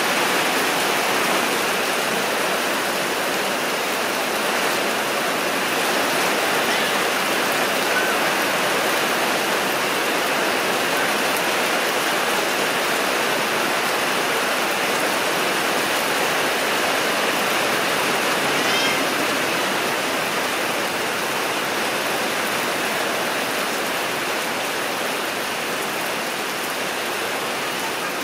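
Heavy rain falling steadily, a dense even hiss. About two-thirds of the way through comes a brief, faint high squeak.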